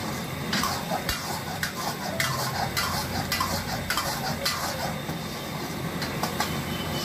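Metal spoon scraping and clinking against a frying pan about twice a second as fried chicken is stirred and cooked down in a thick gravy over a high gas flame, with the gravy sizzling underneath.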